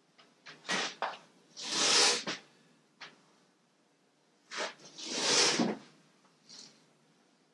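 Cloth wiped along a sanded wooden kayak hull: two long rubbing swipes, about two and five seconds in, with a few short clicks and knocks between them.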